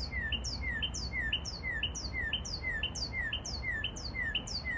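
Northern cardinal singing, a short downslurred phrase repeated steadily about twice a second.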